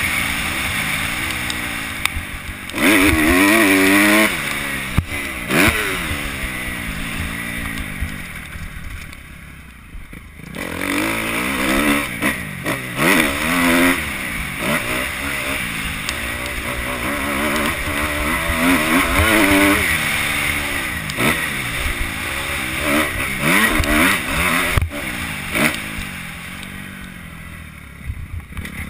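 2011 Kawasaki KX250F's four-stroke single-cylinder engine revving hard under throttle on a motocross track, the pitch climbing and dropping again and again through shifts and throttle changes. About eight seconds in it eases off into a quieter lull before it picks up again.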